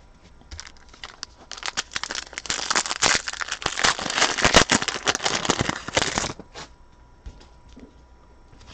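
Trading-card pack wrapper being crinkled and torn open: a dense run of crackling from about half a second in until about six seconds, then a few light clicks.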